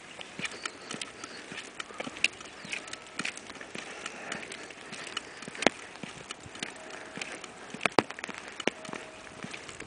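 Irregular light clicks and taps, several a second, over a faint steady hiss. A sharper tap comes about halfway through and another near the end, and two short faint tones sound in the last few seconds.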